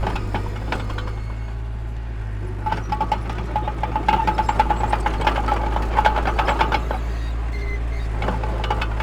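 Heavy diesel construction machinery running with a deep steady drone, and a rapid metallic clatter with a ringing edge from about two and a half to seven seconds in.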